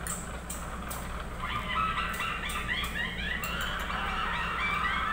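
A flock of birds calling all at once, a dense chatter of many short overlapping chirps that starts about a second and a half in, over a steady low hum.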